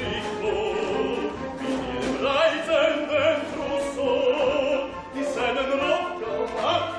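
Operetta singing with vibrato over an orchestra, in a lively stage number.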